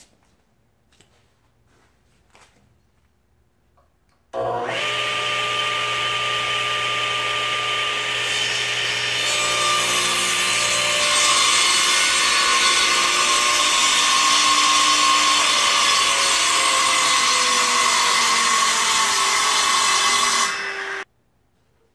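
Radial arm saw switched on about four seconds in, its motor running with a steady hum and whine, then cutting through a laminated pine board, the sound growing louder and harsher from about ten seconds in. It cuts off suddenly near the end.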